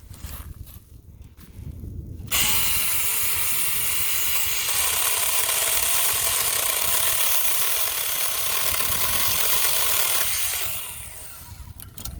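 Saker 6-inch mini cordless electric chainsaw switched on about two seconds in and cutting through a small branch, a steady motor-and-chain whine that fills out a few seconds later, then runs down and stops near the end.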